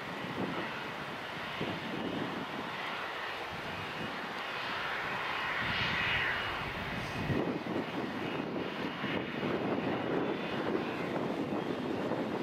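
Airliner engine noise, a steady rushing that swells to its loudest about halfway through as the aircraft passes.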